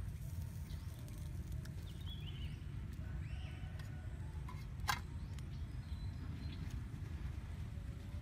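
Outdoor ambience: a steady low rumble with faint high chirps now and then, and one sharp knock about five seconds in.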